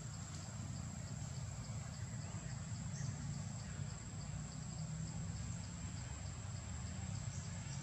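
Insects chirring steadily in forest undergrowth: a thin high drone with a faint pulsing chirp repeating a few times a second, over a low steady rumble.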